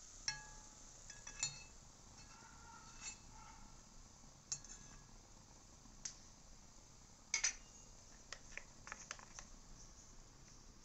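A metal spoon clinking and tapping against a metal unniyappam pan and a glass dish: scattered light clinks, a few with a short ring, and the loudest is a quick double clink about seven seconds in.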